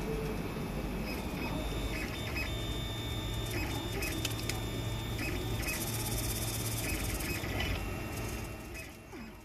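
BCP-01 RepRap 3D printer printing: its stepper motors whine in short repeated bursts as the print head and bed move, over a steady fan hum. About halfway through there is a stretch of brighter hiss for a couple of seconds.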